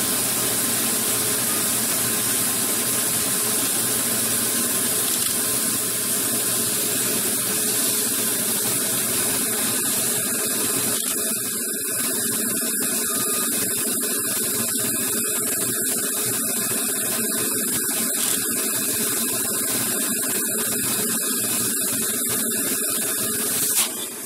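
Steady rush of a vacuum cleaner's motor and suction feeding a LEGO vacuum engine. From about halfway the rush turns choppy and uneven, and a sharp click comes just before the end.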